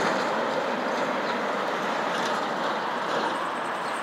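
Semi tractor-trailer driving past on a multi-lane road: a steady rush of tyre and engine noise that slowly fades as the truck moves away.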